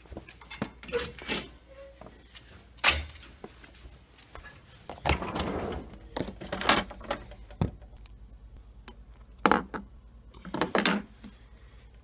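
Handling sounds of a freezer being opened and searched: knocks and thumps, the loudest a single sharp knock about three seconds in, a scraping slide of about a second as a freezer drawer is pulled out, and clunks of glass jars being moved near the end.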